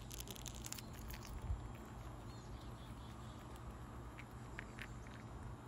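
Eastern chipmunk scrabbling on a woven wicker chair seat and handling seeds: a cluster of light clicks and scratches near the start, a dull thump about a second and a half in, and a few faint clicks later, over a low steady rumble.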